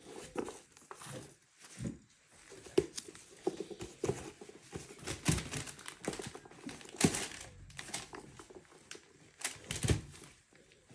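Sneakers and their packaging being handled: paper crinkling and rustling, with scattered knocks and thumps, the sharpest about three seconds in, about seven seconds in and near the end.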